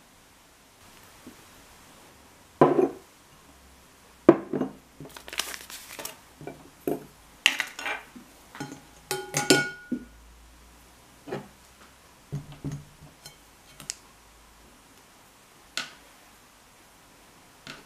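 Kitchen things being handled and set down on a worktop mat: irregular knocks and clinks of glassware and dishes, with the crinkle of a dried-yeast sachet and a short glassy ring about halfway through.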